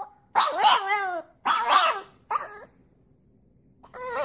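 French bulldog puppy howl-barking: three short yowls that bend up and down in pitch, the last one clipped, then a pause and the start of a longer, falling howl near the end.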